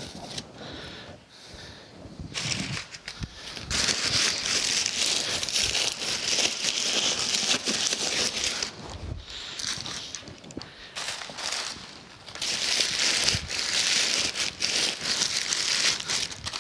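Brown kraft packing paper crumpled and crinkled by hand as it is stuffed into a wooden crate. It is light at first, then a dense crackling, with a quieter stretch past the middle.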